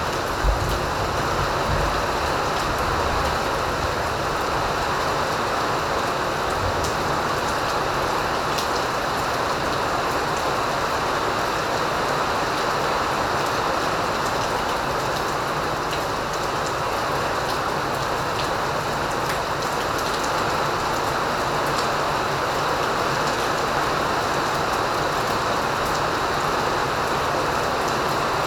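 Rain falling steadily, a dense, even hiss with scattered faint drop ticks and a brief low bump just after the start.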